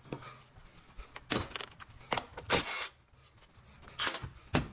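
Metal hand tools clicking and clattering against a 48RE automatic transmission as a nut at the band is taken off, in four short bursts.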